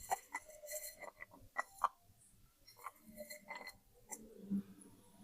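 Wet slate pencil being bitten and chewed close to the microphone: irregular crisp crunches and small wet clicks, several to a second, with a lower chewing sound near the end.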